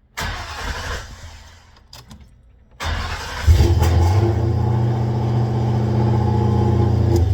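Car engine cranked by its starter through a newly installed push-button start: a short first crank that fades, then a second crank near three seconds in that catches. The engine then idles steadily until it stops near the end.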